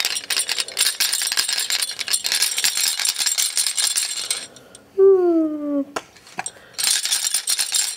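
A baby's plastic toy rattle being shaken, a dense fast rattling of small beads that stops about halfway through and starts again near the end. In the gap a voice gives a drawn-out falling "oh", followed by two sharp clicks.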